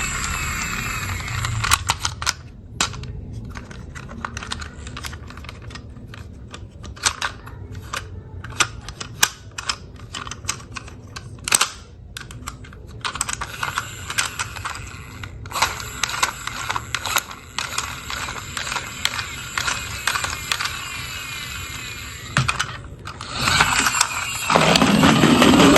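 Plastic toy cars and their packaging being handled: many irregular sharp clicks and taps, with a louder rustling stretch near the end.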